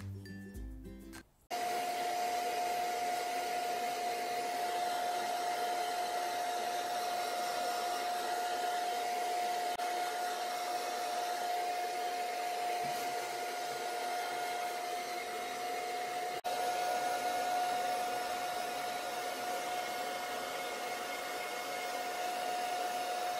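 Hand-held hair dryer running steadily while drying a wet kitten's fur: a rush of air with a steady whine. Background music plays for the first second or so before the dryer sound comes in abruptly.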